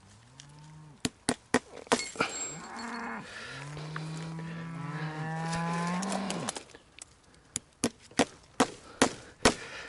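Cows mooing: a short moo near the start, another a couple of seconds in, then one long low moo lasting about three seconds. Sharp knocks come between the calls and in a quick run near the end, as from hammer blows while fencing with barbed wire.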